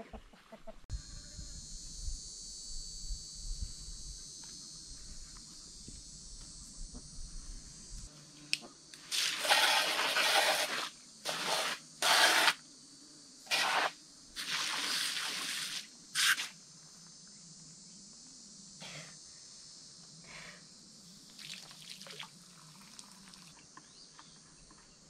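A garden hose spray nozzle hissing in several short bursts, each up to about two seconds, in the middle of the stretch. Insects keep up a steady high chorus behind it.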